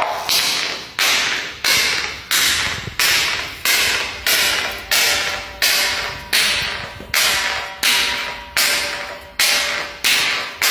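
A glass jar with a metal lid tumbling down marble stairs. It strikes each step with a sharp clack that rings briefly, about three hits every two seconds in a steady, even rhythm.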